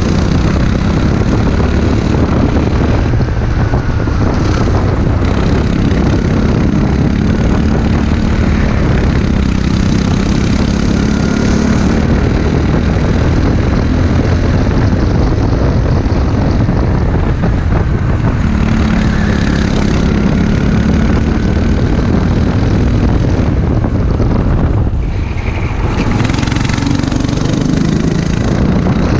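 Racing kart engine running hard, heard from the driver's seat, its pitch rising and falling with the throttle and dipping briefly about 25 seconds in, over a steady rush of wind on the microphone.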